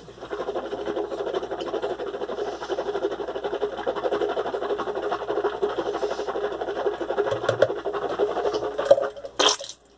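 Mouthwash being swished around the mouth: a steady, rapid liquid sloshing that lasts about nine seconds. It ends with a short, sharp burst of breathy noise near the end.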